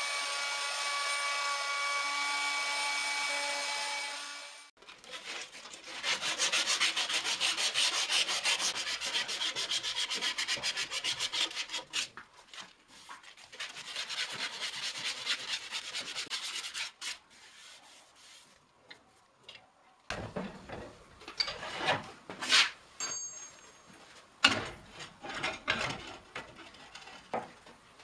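An electric router running with a steady whine, cutting a spiral groove in a wooden blank on a lathe, cuts off about five seconds in. Then a strip of sandpaper is rubbed quickly back and forth by hand through the twists of the wooden spiral, in long runs. Near the end come scattered clicks and knocks of tools being handled at the lathe.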